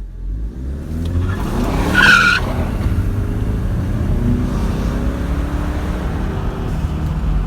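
2015 Ford Mustang EcoBoost's turbocharged 2.3-litre four-cylinder accelerating hard under full throttle, heard from inside the cabin, the engine note climbing. The tyres squeal briefly about two seconds in.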